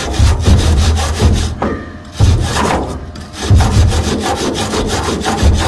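Wire-feed welding arc from a hzxvogen multi-process welder: crackling with a low buzz, in three stretches broken by short pauses about two and three seconds in.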